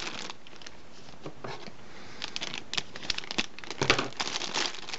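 Plastic packaging crinkling in short, irregular rustles as it is handled, starting about two seconds in, with the loudest crackle near the end.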